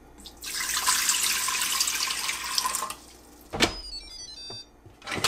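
Water pouring from a glass measuring cup into a stainless steel cooker pot for about two and a half seconds. A knock and faint squeaky scraping follow as the lid goes on, with another knock near the end.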